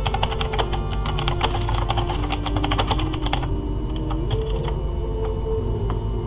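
Computer keyboard being typed on: quick, dense key clicks for about three and a half seconds, then a few scattered clicks. A low tone that shifts pitch in steps runs underneath.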